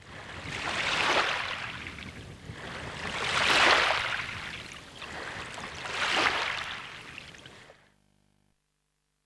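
Water washing onto a sandy shore in three slow swells about two and a half seconds apart, each building up and falling away, then cutting off abruptly a little before the end.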